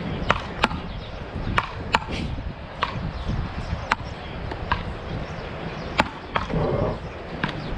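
A beach paddleball rally: a small ball clacking off solid wooden paddles, struck back and forth at uneven intervals. The near player's hits are sharper and louder than the far player's.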